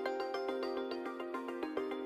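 Background music: a quick run of repeating pitched notes, several a second, with no bass.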